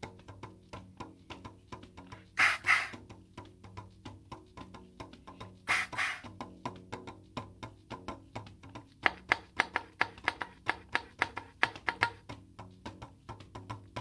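Soprano saxophone with half a 12-inch balloon stretched over its bell, played as a drum: fingers tap the balloon membrane in a rhythmic run of short taps. Two longer, louder noisy bursts come about two and a half and six seconds in, and the taps turn quicker and more even over the second half.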